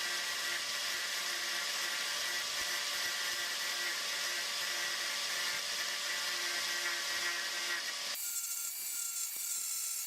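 Angle grinder grinding down the leftover metal mounting hardware of a sway bar link, a steady harsh whir with a whine through it. About eight seconds in the grinding sound drops away abruptly, leaving only a higher whine.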